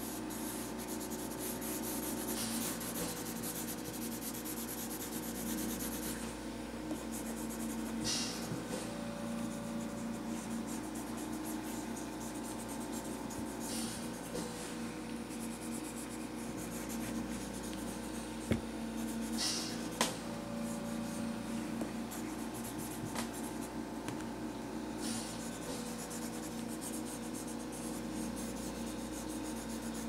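Pencil shading on sketchbook paper: a steady scratchy rubbing of back-and-forth strokes that swells and eases as the hand works, over a steady low hum. About two-thirds of the way through come two sharp clicks, a second and a half apart.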